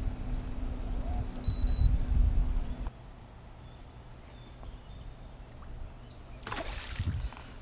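A boat motor humming steadily under low wind rumble, which stops abruptly about three seconds in. Near the end, a hooked peacock bass splashes at the surface beside the boat for about a second.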